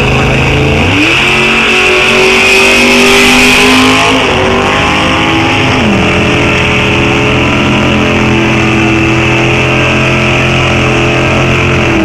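Supercharged Peugeot 205 Pro ET drag car launching about a second in and making a full drag-strip pass. The engine note steps down at gear changes around four and six seconds, holds steady under full throttle, and starts to fall as the car lifts off at the end.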